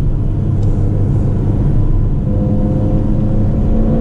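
Ferrari Portofino's twin-turbo V8 running at a steady cruise with tyre and road noise, heard from inside the cabin: a low, even rumble. A faint steady hum joins it about halfway through.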